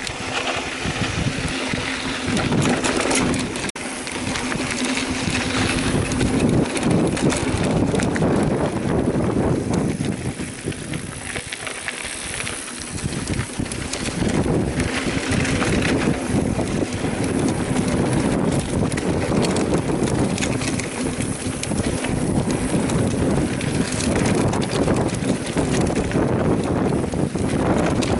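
Mountain bike descending a rocky trail: a continuous rattle and clatter of tyres, frame and drivetrain jolting over rocks, full of irregular knocks.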